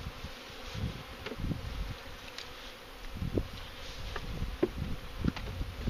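Honeybees buzzing around an open hive, the buzz swelling and fading again and again as bees fly close past.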